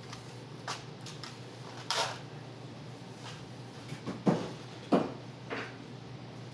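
A few scattered knocks and clicks of tools and hardware being handled and set down, with two louder thumps about four and five seconds in, over a steady low hum.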